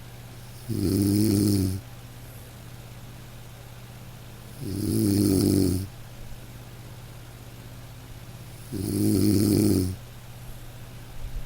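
A person snoring with a steady rhythm: three snores about four seconds apart, each lasting about a second. A low, steady hum sounds between the snores.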